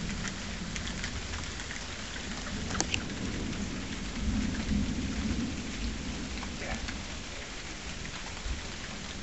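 Thundershower: steady rain falling, with sharp ticks of drops landing close by, and a low rumble of thunder swelling about four seconds in.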